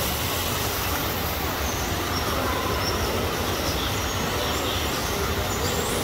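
Steady rushing background noise with a low rumble, as in a large glass-roofed aviary, with a few faint, high bird chirps over it.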